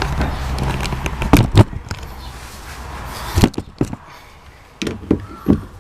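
Knocks and clinks of hardware being worked loose and unbolted from a fiberglass boat, after a steady noise fades out about a second and a half in.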